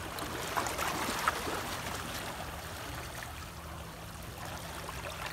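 Small waves lapping and trickling among shoreline rocks, a steady wash of water with a few faint clicks in the first second or so.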